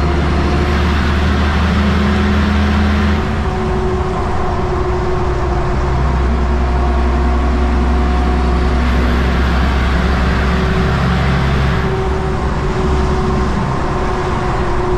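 Kenworth truck's diesel engine heard from inside the cab, pulling under load uphill in 17th gear of an 18-speed Road Ranger gearbox. The low engine note is steady and loud, easing briefly about three seconds in and again near the end.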